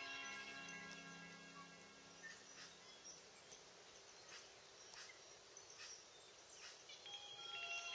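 Soft chime-like background music with held notes that fade out over the first few seconds. Then a steady faint hiss with a few faint ticks, and the chime notes come back near the end.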